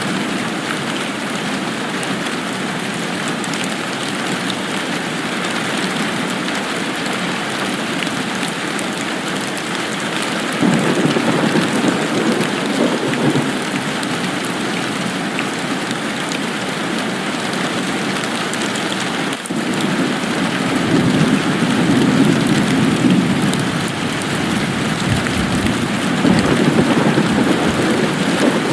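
Steady rain falling, with low rolling rumbles of thunder swelling up about ten seconds in, again around twenty seconds in, and near the end.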